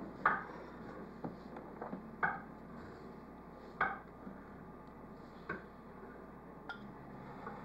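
Scattered sharp clinks of cutlery and dishes, about five in all and one to two seconds apart, each with a short ring, over faint room tone.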